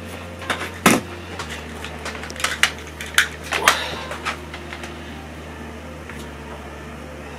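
Light clicks and knocks of a smartphone and its USB charging cable being handled and plugged in, the loudest about a second in, dying away after about four and a half seconds. A steady low hum runs underneath.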